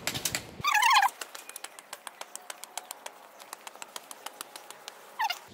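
A bird gives a loud, wavering shrill call about half a second in and a shorter falling one near the end, over many light taps of footsteps on concrete steps.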